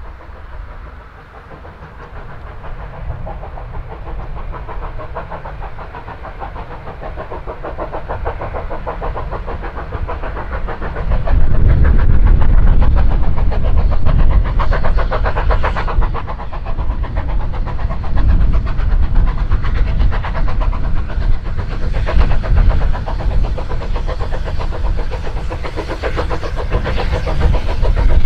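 Steam locomotive working a train, its rapid rhythmic exhaust beat growing louder as it approaches. About eleven seconds in, a heavy low rumble joins it and the sound stays loud.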